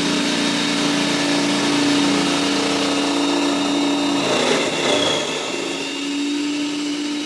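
Electric food processor motor running steadily as its blade shreds Brussels sprouts fed down the chute. The steady hum breaks into a rougher chopping noise for about a second, a little past halfway, then settles again.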